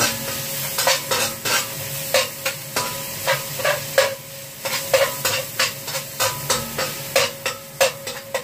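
Minced pork sizzling in a wok while a spatula stirs it, scraping and clinking against the pan at irregular moments, several times a second, over a steady frying hiss.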